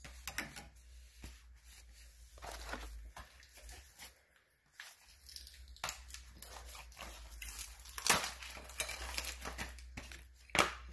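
Scattered clicks, scrapes and rustling of hands handling brake pads and their packaging, over a low steady hum.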